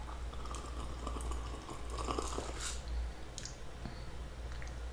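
Close-miked wet mouth sounds of sipping and swallowing a fizzy drink, with a few soft clicks in the middle.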